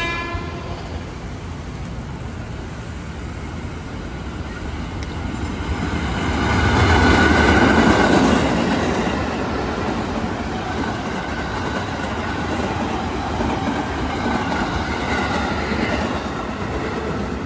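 KRL Commuter Line electric train, an ex-JR 205 series unit, passing close by. The rumble and clatter of its wheels on the rails build to their loudest about seven or eight seconds in, then hold steady as the cars go past.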